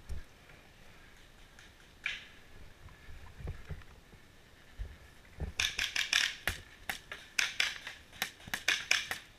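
Paintball fire at close range: after a few dull knocks, a quick run of sharp cracks starts about five and a half seconds in, several a second in short bursts.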